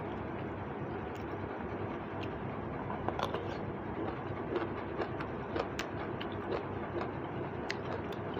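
Eating by hand: scattered small clicks and smacks of chewing and fingers working food, over a steady rushing background noise.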